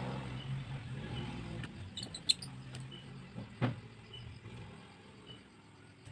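Small clicks and taps of tools and parts being handled on a phone repair bench over a steady low hum, with a sharp click a little over two seconds in and a louder knock about a second later.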